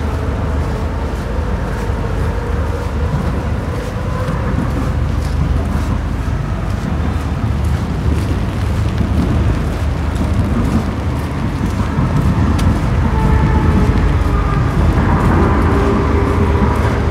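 City street ambience: a steady low rumble of road traffic, growing a little louder over the last few seconds, with scattered faint clicks.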